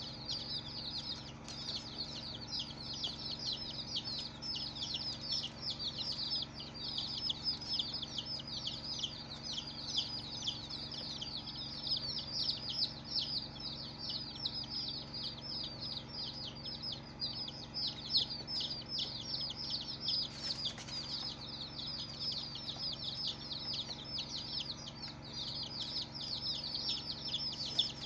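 A brood of baby chicks peeping continuously: many high, short chirps overlapping in a dense stream.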